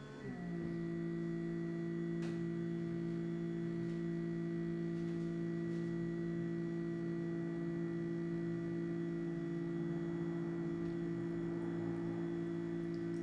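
Subminimal NanoFoamer PRO electric milk frother running with a steady motor hum; its pitch drops and settles within the first half second, then holds even.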